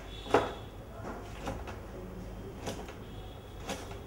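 A hand cutter skiving a hydraulic hose, stripping the rubber outer cover from the hose end in short scraping strokes about once a second. The first stroke is the loudest.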